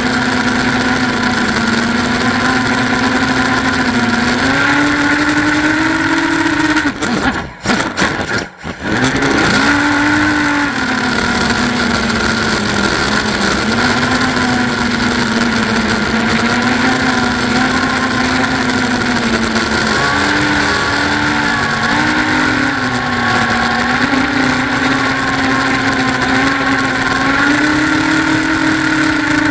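Eachine Wizard X220 quadcopter's motors and propellers whining steadily, heard from the camera on board, the pitch stepping up and down with throttle. About seven seconds in the sound cuts out twice briefly, then the motors spin back up.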